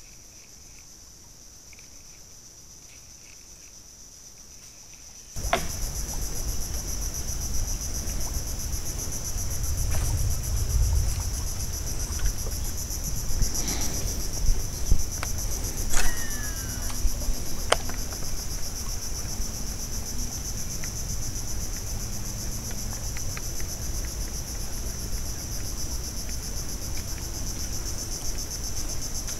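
Insects droning in a steady high chorus, over a constant low rumble and a few sharp clicks. The sound starts suddenly about five seconds in, after a faint opening with soft ticks.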